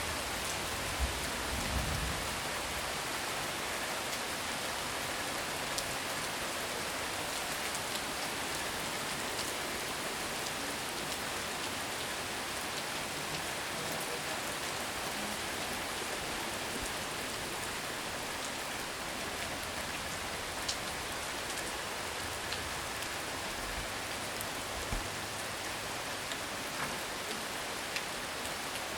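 Heavy rain falling steadily: a dense, even hiss with sharp ticks of individual drops hitting surfaces close by.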